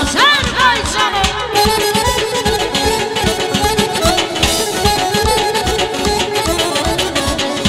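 Instrumental Azerbaijani wedding dance music: a garmon (Azerbaijani button accordion) melody over a steady drum beat.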